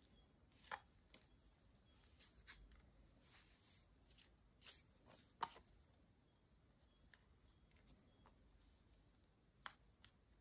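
Faint, scattered rustles and soft clicks of die-cut paper pieces being handled, folded and pressed together while gluing. The loudest click comes about five seconds in, with two more near the end.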